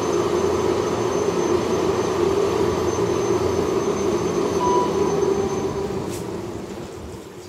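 Hillside inclined lift (small funicular cabin on rails) running, a steady mechanical rumble with a thin high whine. The noise fades away over the last two seconds as the car slows to a stop.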